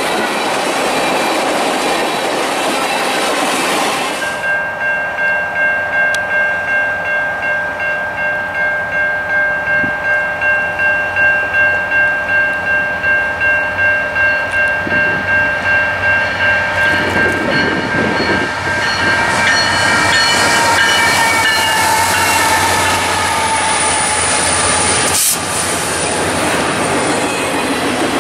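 Freight cars rolling past on the rails with steady wheel noise. Then a grade-crossing bell rings with even strokes about twice a second. From about two-thirds of the way in, an approaching CN intermodal freight train's locomotive sounds a long horn blast over the bell.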